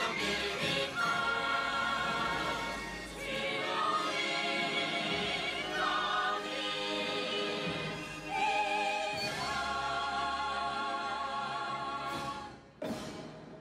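Group of voices with orchestra singing the drawn-out closing lines of a song in Norwegian, on long held notes with vibrato. The music breaks off a little before the end, and two sharp hits follow.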